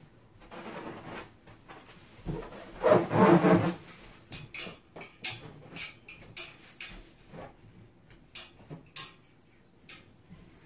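Latex balloons being shifted and rubbed against one another, a dense rubbing and squeaking that is loudest a few seconds in. After that come a string of short light taps and clicks as they are handled. No balloon pops.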